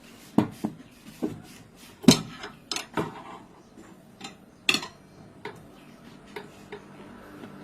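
Irregular metal clanks and knocks from a tyre lever and the tire-changer machine's parts striking the wheel rim as the tyre bead is pried off a scooter wheel. The loudest knock comes about two seconds in, with about a dozen strikes in all.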